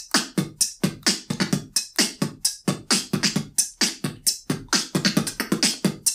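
Mouth-made beatbox percussion: a fast, steady pattern of sharp snare and kick-like hits, about five a second, demonstrating the rimshot snare.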